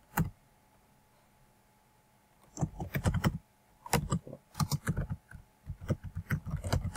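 Typing on a computer keyboard: a single keystroke at the start, a pause of about two seconds, then quick runs of keystrokes with short breaks between them.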